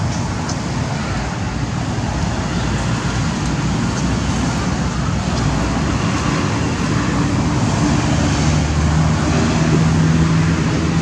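Steady road traffic noise, with a vehicle engine's low hum rising in the last few seconds.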